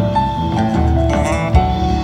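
Live band music: sustained keyboard notes and a stepping melody over bass, with a quick rising run about a second in and a single low thump shortly after.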